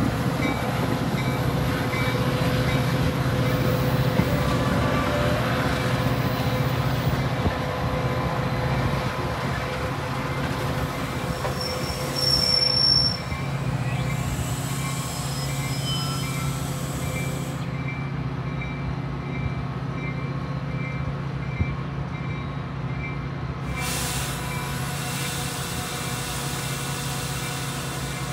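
Metra diesel commuter train running steadily at the station, a continuous engine hum with a brief high-pitched squeal about twelve seconds in.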